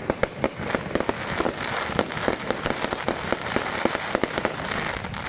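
Fireworks going off at a display: a dense run of sharp, irregular crackling pops, several a second, over a continuous fizzing hiss.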